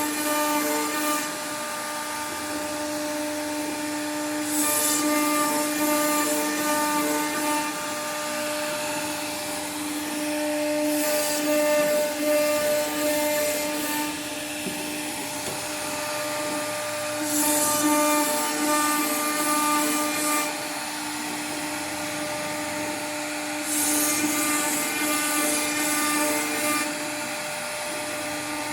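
CNC router spindle running with a steady high whine while its bit cuts into wood. The cutting noise swells into a harsher hiss four times, each pass lasting about three seconds.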